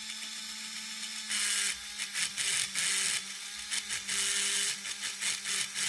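The small electric motor and gear train of an HO-scale 0-10-0 steam locomotive running under power: a steady hum with irregular bursts of gritty gear noise. The noise comes from a drivetrain whose worm gear is slipping on the large drive gear, which the owner puts down to a loose gear.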